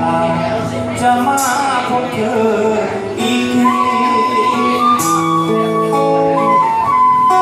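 A live band playing: a flute holds long sustained notes over guitar and a drum kit.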